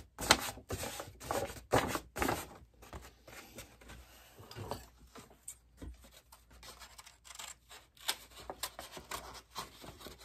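Large steel shears cutting a paper template, with short snips and the crackle of the stiff brown paper as it is handled and pressed against the shoe. The loudest crackling comes in the first couple of seconds, and quieter scattered snips follow.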